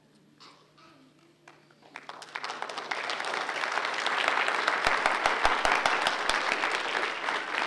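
Audience applauding: hand clapping that starts about two seconds in, builds within a second or so, and keeps going steadily.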